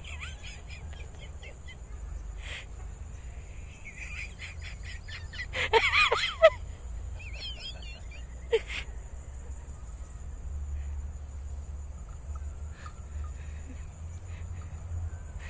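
Scattered short chirping animal calls over a steady low hum, with a louder cluster of calls about six seconds in and a wavering call just after it.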